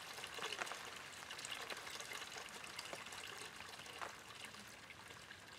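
Water running from an outdoor standpipe tap in a thin stream and splashing onto the ground: a steady, quiet trickle with small scattered splashes.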